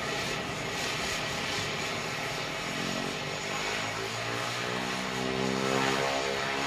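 Beechcraft King Air A90's Pratt & Whitney Canada PT6A-21 turboprop running on the ground, with only the left propeller turning. About three seconds in, a hum of several tones starts rising slowly and steadily in pitch.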